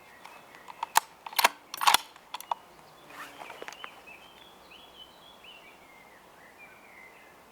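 Several sharp metallic clicks and knocks in quick succession, about a second in, with a faint bird chirping in the background afterwards.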